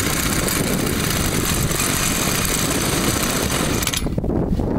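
Small two-stroke brushcutter engine of a homemade outboard motor running steadily out of the water, spinning its propeller in air. Its running sound cuts off sharply about four seconds in as the engine is switched off.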